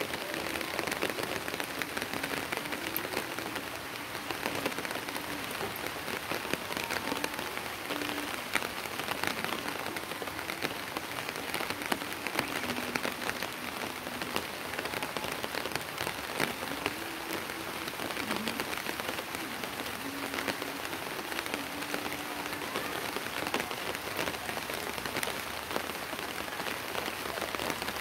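Steady rain falling on a flat concrete rooftop, a dense even patter of countless individual drops.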